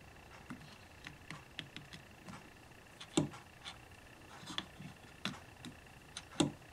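Faint scattered clicks and taps of fingers handling a dial indicator gauge, adjusting it by hand to bring it to zero, with two sharper clicks about three seconds in and near the end.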